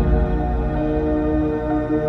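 Ambient background music: sustained held tones over a low bass.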